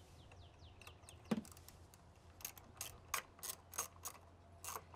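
Socket ratchet clicking as it loosens a nut on the battery hold-down bracket: one sharp click about a second in, then a run of clicks about three a second.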